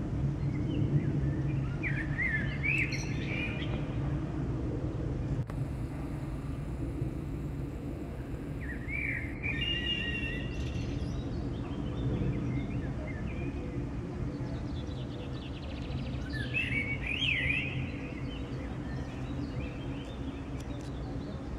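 Twin-engine jet airliner passing low overhead, its engines a steady low drone. Songbirds chirp over it in three short bursts, about two, nine and seventeen seconds in.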